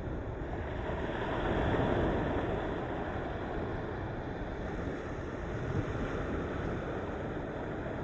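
Sea waves washing against the shore in a continuous rushing surf, one wave swelling loudest about two seconds in.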